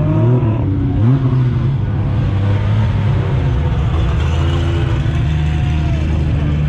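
A car engine running loud and close, with a short rev that rises in pitch about a second in.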